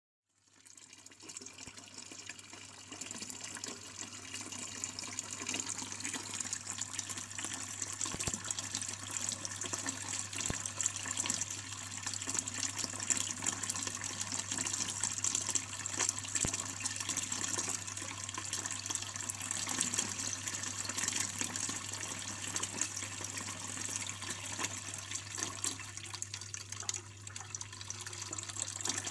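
Stone cannonball fountain's water spilling from its spout into the basin, a steady splashing trickle that fades in over the first few seconds.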